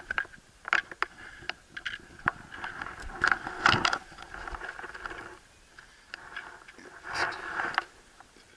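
Close, irregular clicks and scraping as a dog shifts about on a plastic boat hull, its claws tapping the plastic and its life vest and fur rubbing near the microphone. Two longer stretches of rubbing come a few seconds in and again near the end.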